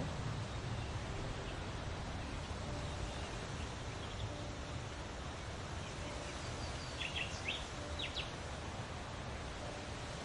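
Forest ambience: a steady rushing hiss with a low rumble, and a few short bird chirps about seven to eight seconds in.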